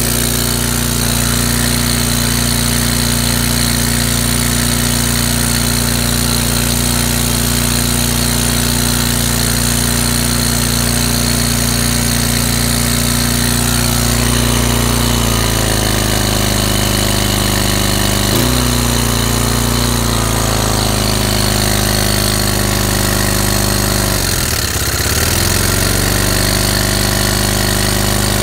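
Small gasoline engine of a hookah diving air compressor running after a carburettor cleaning. It runs steadily, settles to a slightly lower speed about halfway through, stumbles briefly, and near the end sags sharply in speed before picking back up.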